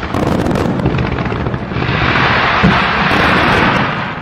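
Aerial fireworks going off in a rapid barrage: overlapping bursts and booms, then from about two seconds in a dense, loud crackling hiss that starts fading near the end.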